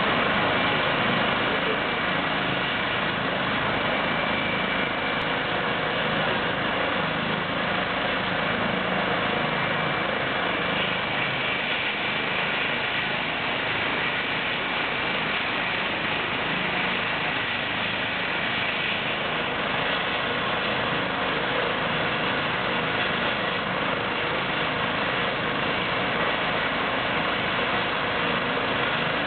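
Eurocopter EC135 air ambulance helicopter running on the ground before lift-off: a steady turbine whine with the rotor turning at constant speed.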